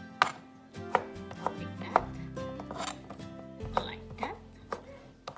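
Kitchen knife slicing sausage on a cutting board, the blade knocking on the board in an uneven series, about one or two cuts a second.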